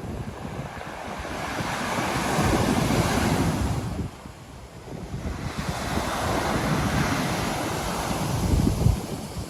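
Ocean surf: two waves washing in, the first building over a few seconds and dropping off suddenly about four seconds in, the second swelling again soon after. Wind rumbles on the microphone throughout.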